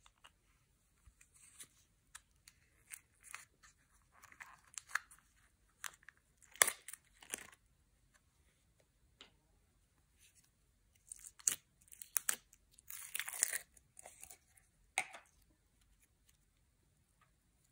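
Clear pink glitter slime handled by hand, pulled from its tub and then stretched and squeezed: sticky tearing and crackling sounds with scattered clicks. The loudest crackles come about a third of the way in and again around two thirds.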